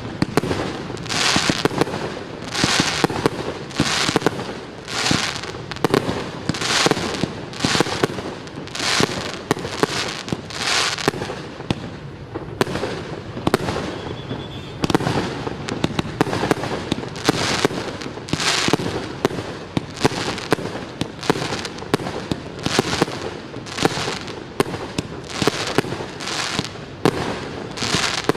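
Fireworks going off in a long rapid series, a hissing, crackling burst about once a second.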